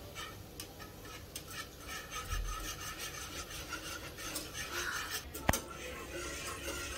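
Wire whisk beating gram flour into a thin yogurt-and-water batter in a pot: a steady run of quick scraping, clicking strokes against the pot, with one sharp click about five and a half seconds in.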